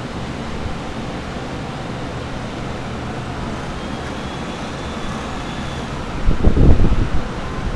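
Steady whoosh and hum of many centrifugal air movers running along a hallway to dry out flood water. About six seconds in, a loud low rumble lasts for about a second.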